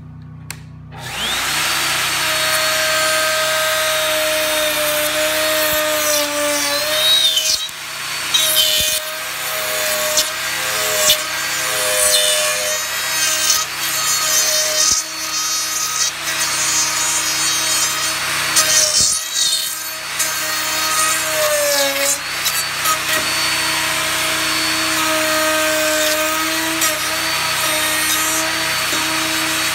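DeWalt router spinning up with a rising whine about a second in, then running steadily as its bearing-guided dovetail bit cuts into the end of an ash timber along a template, with loud cutting noise over the motor. Its pitch sags briefly a few times as the bit bites into the wood.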